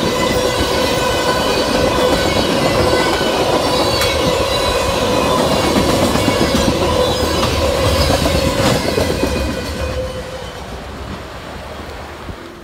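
Freight train of tank cars rolling past close by: a dense rumble of steel wheels on rail with a steady high whine ringing over it and a few sharp clicks at rail joints. The noise falls away about ten seconds in as the end of the train passes and recedes.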